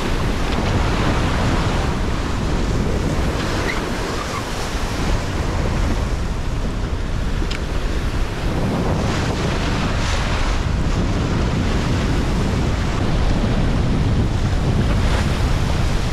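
Strong wind buffeting the microphone over the rush and splash of water along a sailing yacht's hull as it runs through rough seas. The wash swells now and then, around the middle and again near the end.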